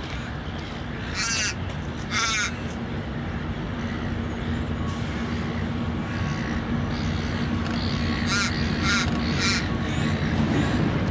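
Diesel locomotive engine running in the distance, a steady low drone that grows gradually louder, while a bird gives harsh calls, twice a second or two in and three times near the end.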